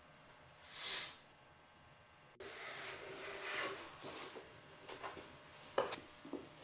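A leather work boot being handled on a workbench: a brief swish about a second in, then rustling and rubbing of the leather, and a few light knocks near the end, the loudest as the boot is set down on the table.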